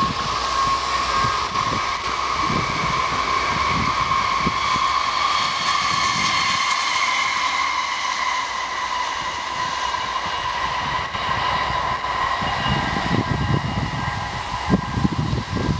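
Sm2 electric commuter train passing close by, its wheels hissing on the rails, with a steady high whine throughout.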